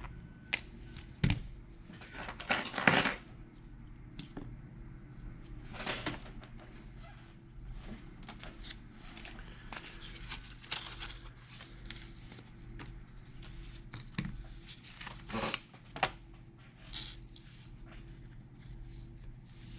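Scattered small clicks, taps and short scrapes of small objects being handled on a hard surface, over a steady low hum; the loudest come about a second in and two to three seconds in.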